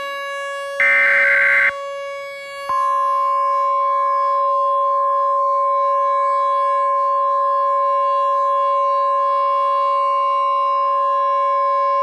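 Emergency Alert System header: a short burst of screeching digital data ends about two seconds in. After a brief gap, the long, steady EAS attention tone begins and holds, with a lower steady tone beneath it the whole time.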